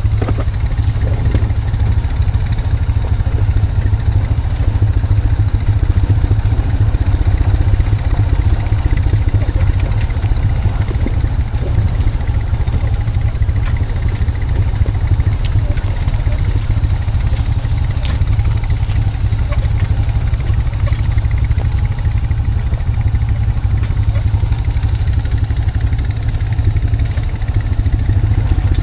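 Honda Foreman 520 ATV's single-cylinder engine running steadily at low revs, with scattered clanks and rattles over it.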